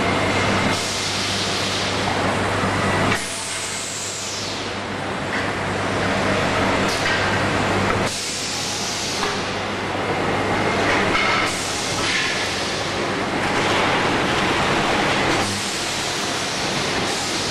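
Wheel-rim roll-forming machine running: a steady, dense mechanical noise with a low motor hum that drops out and comes back, its level changing abruptly several times.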